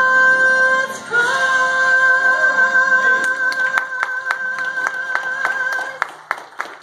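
A woman singing the long held final note of a gospel song, with a short breath about a second in and a slight waver near its end. Clapping starts about three seconds in and continues after the note stops near the end.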